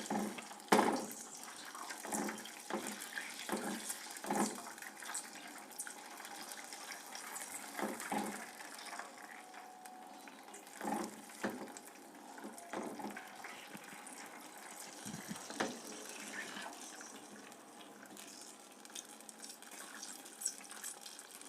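A whisk stirring olive oil into a thick, cooked syrup in a pot: wet liquid sounds with irregular knocks of the whisk against the pot, busier in the first few seconds.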